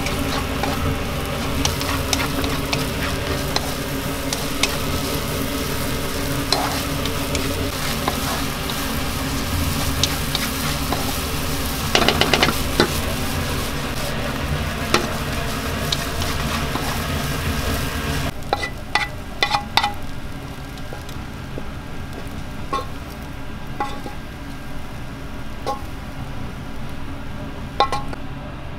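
Mie goreng noodles sizzling in a pan while a spatula clacks and scrapes against it, with a short run of rattling about twelve seconds in. About two-thirds of the way through, the sizzle drops away, leaving scattered knocks of the spatula as the noodles are scraped out onto a plate.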